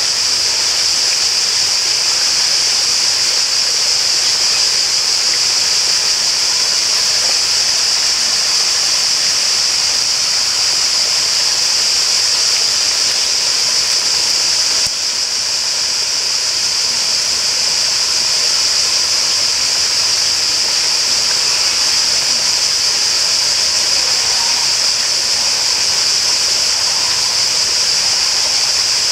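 Flowing water running steadily in a constant hiss, with a brief small dip in level about halfway through.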